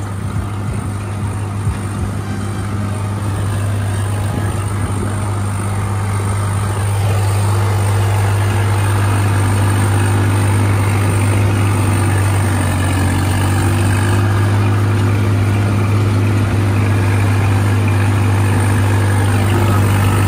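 Swaraj 855 tractor's three-cylinder diesel engine running steadily at about 1800 rpm under load, pulling a disc harrow. It is a low, steady drone that grows louder about seven seconds in.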